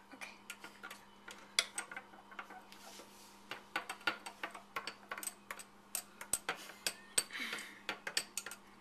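Long metal spoon stirring a coffee and ice-cream drink in a tall glass, clinking irregularly against the glass. The clinks come sparsely at first and then quicker and more often from about halfway through.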